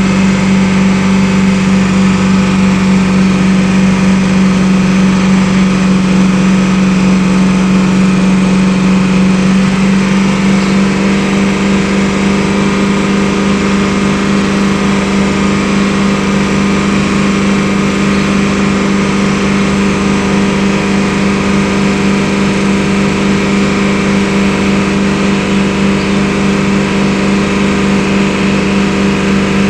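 BMW engine running steadily at idle, with a slight change in its note about ten seconds in.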